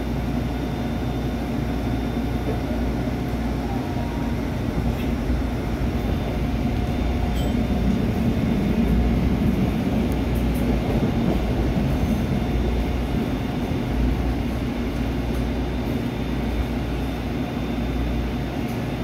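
Interior sound of a SEPTA Route 101 trolley pulling away from a stop and running along the track: a steady rumble of motors and wheels on rail with a faint steady whine. The rumble grows louder about eight to ten seconds in, then eases off, with a few light clicks.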